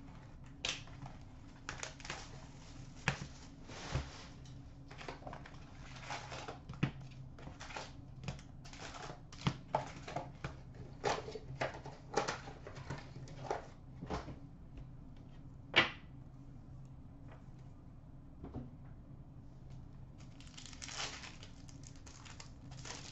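Hockey trading cards and their packs being handled and stacked on a glass counter: a run of irregular light clicks, taps and rustles, with one sharper tap about 16 seconds in and a longer rustle near the end.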